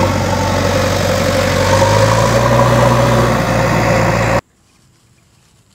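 A vehicle engine running steadily at idle, a low hum with a rough edge, which cuts off suddenly about four seconds in and leaves only faint background noise.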